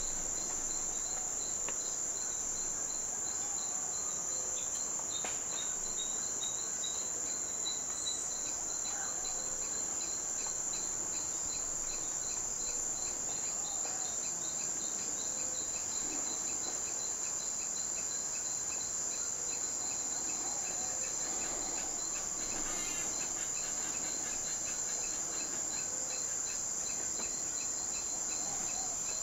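Insect chorus: a steady high-pitched drone, with a second insect's fast, even train of pips running beneath it.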